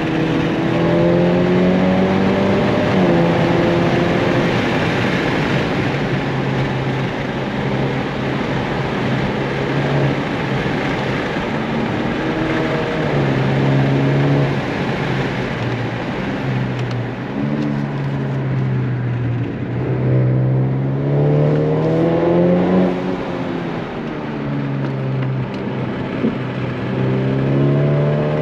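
Honda Accord 2.0T's turbocharged four-cylinder, fitted with a Civic Type R turbo, aftermarket downpipe and exhaust, heard from inside the cabin while driven hard around a track. The engine note climbs under acceleration and drops as the throttle is lifted, several times over, with steady road and tyre noise beneath.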